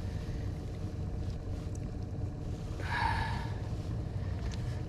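Boat motor running steadily at trolling speed, a low continuous rumble with a faint steady hum. A short, higher sound stands out briefly about three seconds in.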